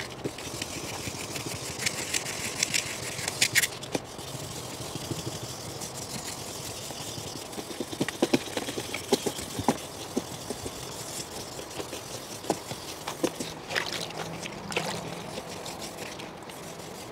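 Wet 2000-grit sandpaper rubbed back and forth by hand over a car's plastic headlight lens: a soft scraping in repeated strokes, with a few light clicks, as the yellowed outer layer is sanded off.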